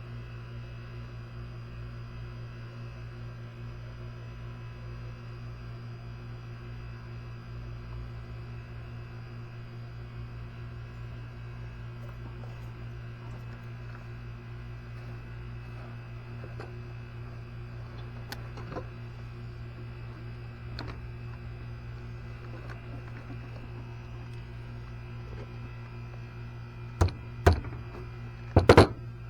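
A steady electrical hum, with scattered faint clicks of tools being handled and a few sharp knocks in quick succession near the end.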